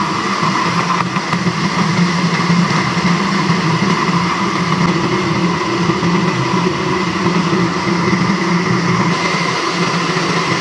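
Electric countertop blender running steadily at high speed, its motor whining as the blades churn chopped chilies, shallots, garlic and water into a smooth spice paste.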